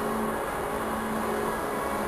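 Background music of held, slowly changing notes over a steady hiss.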